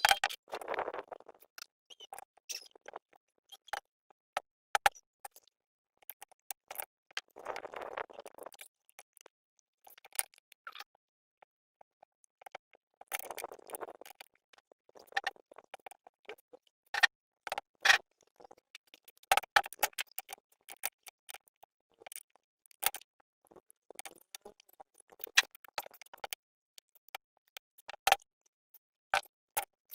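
Scattered sharp clicks and clinks of tools and metal parts being handled while working on an engine, with three short rustles: one near the start, one about 8 seconds in and one about 13 seconds in.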